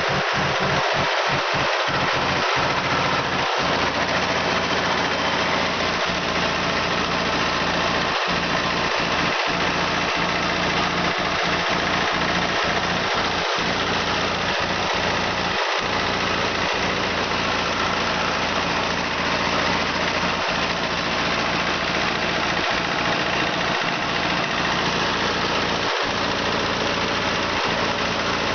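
Floating fish-feed pellet extruder machine running with a steady, unchanging mechanical noise from its drive engine.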